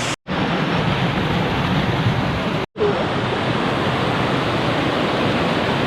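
Steady roar of rushing river water over rapids and falls, broken twice by brief dropouts, about a quarter second in and again near three seconds.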